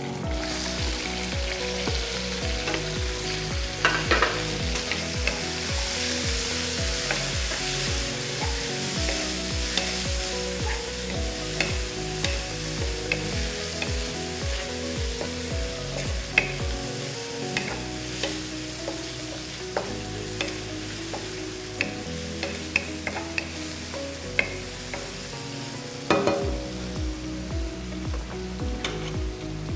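Sliced carrot and bell peppers sizzling in hot oil in a frying pan, tipped in all at once and stirred with a wooden spoon that clicks and scrapes against the pan now and then.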